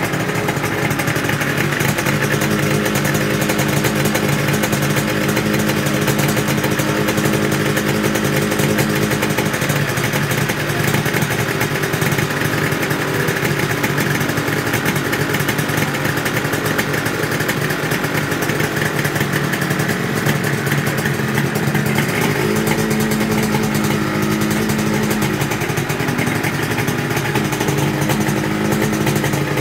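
Honda NSR250 two-stroke V-twin with expansion-chamber exhaust running steadily just after starting, its pitch shifting slightly about two thirds of the way through.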